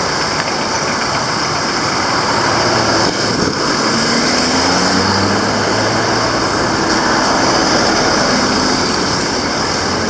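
Steady motor-traffic noise: vehicle engines running, with an engine's pitch sliding up and down about four to nine seconds in.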